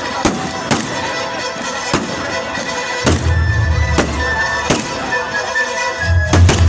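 Aerial fireworks going off in a string of sharp bangs, about one every second, over loud music with held notes and a deep bass that swells twice.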